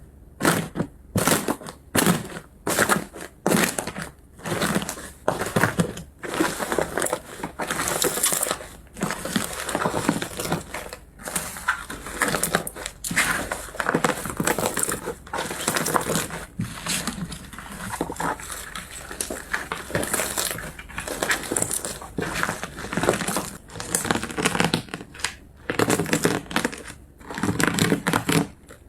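Slime being squeezed and pressed by hand: short, noisy squishes one after another, about one or two a second.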